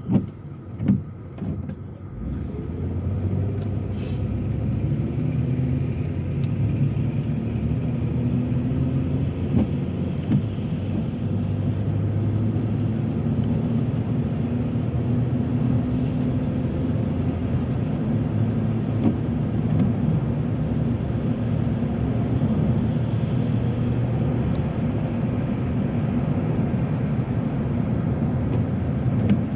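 Car driving noise heard from inside the cabin: engine and tyre noise that builds about two seconds in as the car picks up speed, then holds steady. Two short thumps come right at the start.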